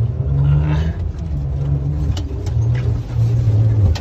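Petrol engine of a three-wheeled motor-tricycle camper running as it is driven slowly, its pitch stepping up and down with the throttle, with a few sharp knocks and rattles from the body over rough ground.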